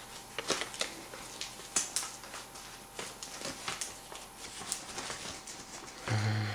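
Brown paper mailer envelope being torn and pulled open by hand: irregular paper rustling and crackling with small ticks and scrapes. A short low hum near the end.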